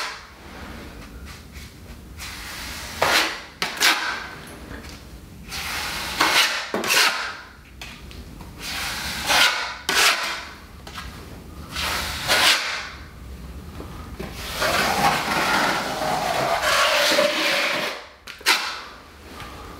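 Steel drywall taping knives scraping and squeezing reinforcing fabric into wet Hydro Ban waterproofing along a cement-board corner joint. The scraping comes in separate strokes about a second long, with a longer run of scraping about three-quarters of the way through.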